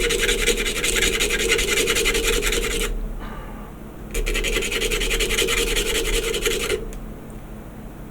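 A plastic model-kit part being sanded down: a rapid, even rasping in two runs, breaking off about three seconds in, starting again a second later and stopping near the end.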